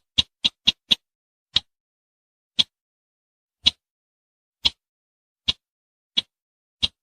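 Sharp, clicking call notes of the sintar semak bush bird, used as a hunting lure call. A quick run of five ticks slows to about one a second, and the calls bunch up again near the end.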